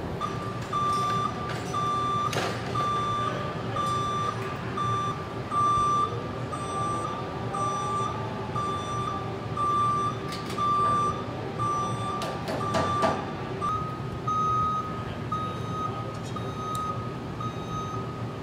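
Motion alarm on an electric aerial work platform beeping in an even, single-pitched series, a little under two beeps a second, stepping slightly higher in pitch near the end. Steady factory machinery hum and a few metallic clanks run underneath.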